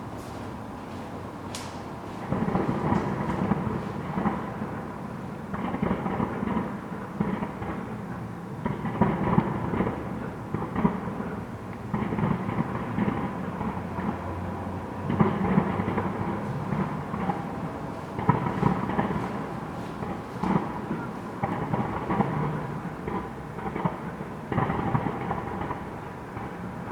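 Fireworks display: aerial shells bursting one after another with deep, rumbling booms. The bursts start about two seconds in and overlap every second or two.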